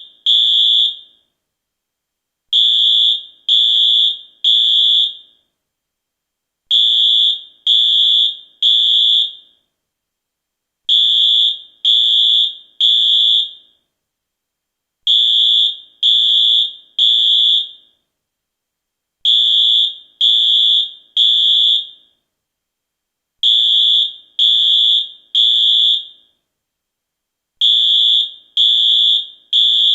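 US fire alarm sounding a high-pitched beep in groups of three, each beep about half a second long, with a pause of about a second and a half between groups: the temporal-three (T3) evacuation signal.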